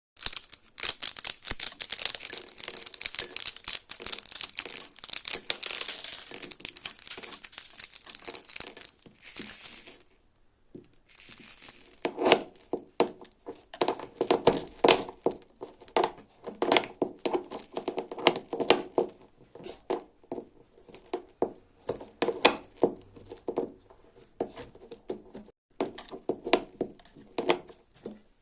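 Chewing-gum wrappers crinkling and tearing in a dense crackle for about ten seconds. After a short pause come a long run of irregular sticky clicks and smacks, from the gum being handled and worked.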